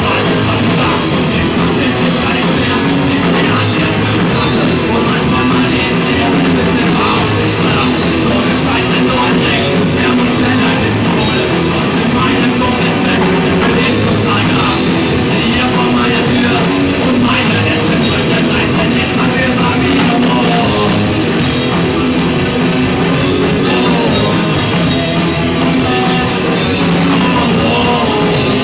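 Rock band playing live and loud: electric guitars, bass guitar and drum kit, with a singer at the microphone.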